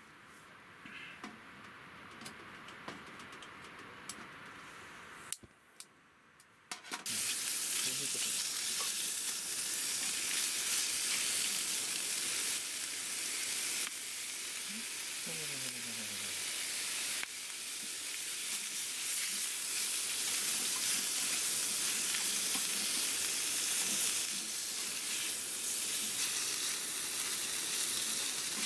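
Whole squid frying in butter in a steel frying pan over a camp gas stove. The pan is quieter at first with a few light clicks, then from about seven seconds on it sizzles loudly and steadily while the squid is stirred.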